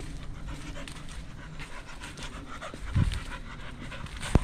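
An American bully dog panting steadily close by, with a low thud about three seconds in and a short sharp knock just before the end.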